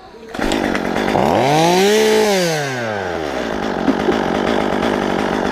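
Chainsaw cutting in loudly, revving up and back down once, then running on.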